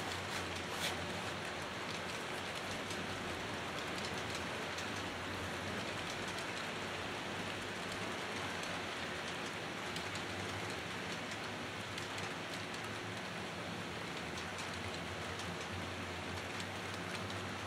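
HO scale model trains running on the layout: a steady rolling hiss with a faint motor hum and scattered small clicks from wheels on the track.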